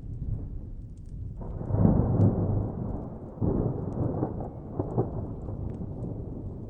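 Distant thunder rumbling. It swells suddenly about a second and a half in, rolls on with a couple more surges, then eases back to a low rumble. Faint scattered clicks of a crackling wood fire sit over it.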